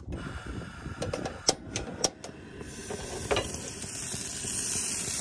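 Coleman propane camp stove being lit: a few sharp clicks as the burner knob is turned, then, from about two and a half seconds in, the hiss of the gas burner, growing steadily louder.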